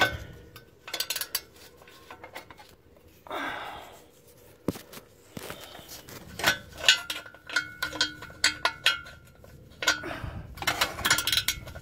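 Ratchet spanner clicking in short runs with metal-on-metal clinks as a stubborn exhaust bolt is worked round, undoing very slowly.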